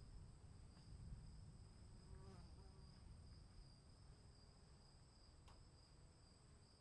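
Faint outdoor ambience of insects trilling steadily in two high, unbroken tones over a low rumble, with a brief chirp about two seconds in and a single sharp tick near the end.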